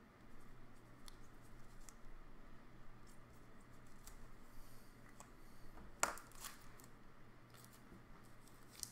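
Hands handling trading cards, foil packs and a marker pen on a tabletop: soft scratches and light ticks, with a sharp click about six seconds in and a smaller one near the end.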